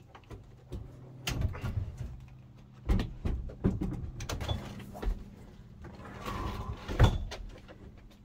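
Irregular knocks, clunks and rattles of things being handled, with the loudest knock about seven seconds in, over a low steady hum.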